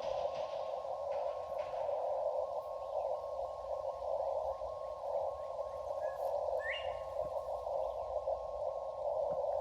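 Xiegu G90 transceiver's receiver hiss, held to a narrow band by its CW filter, with faint Morse code tones keyed within it.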